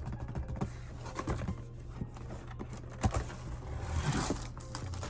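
Scattered light taps, clicks and rustling of packaging as a pair of shoes is unpacked and handled.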